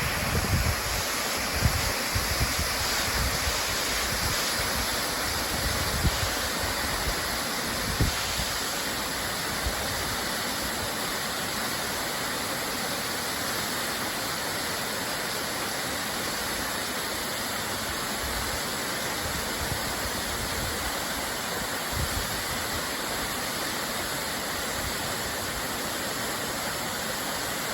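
Steady, even rush of a waterfall. A few short low bumps of wind on the microphone come in the first several seconds.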